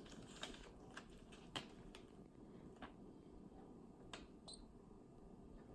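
Near silence: quiet room tone with a few faint scattered clicks and taps, the loudest about one and a half seconds in.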